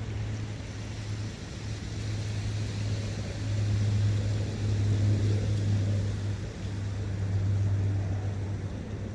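Countryside ambience by a brook: a steady, even hiss under a low hum that swells louder through the middle and then eases off.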